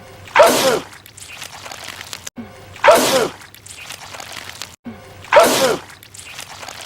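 A man sneezing loudly, the same short film clip looped: three identical sneezes about two and a half seconds apart, each starting on an abrupt cut.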